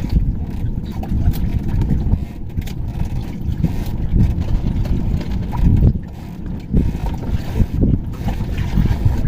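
Wind buffeting the microphone aboard a small fishing boat on open water: a low, uneven rumble that eases briefly about six seconds in.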